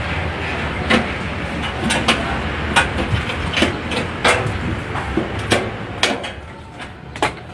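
Sharp, irregular knocks on sheet metal, roughly one or two a second, as a green metal gutter is hammered into shape on a workbench, over a steady low hum.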